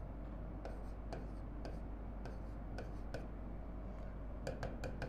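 Pen tip tapping and scratching on an interactive display screen while writing: scattered light taps, with a quicker cluster near the end, over a steady low hum.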